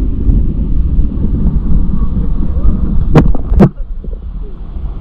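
Strong wind buffeting an action camera's microphone, a loud low rumble over the wash of surf. Two sharp clicks come just past three seconds in, and then the rumble drops.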